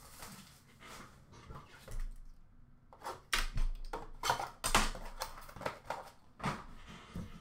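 Light handling noise: a scatter of short clicks, taps and rustles, mostly between about three and seven seconds in.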